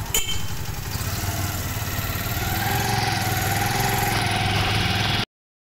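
Motorcycle engine of a motorized tricycle running steadily while riding, with road noise; the sound cuts off suddenly near the end.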